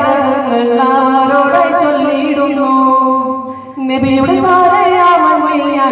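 Two young men singing a katha prasangam song together into microphones, with long wavering held notes and a short break for breath about three and a half seconds in.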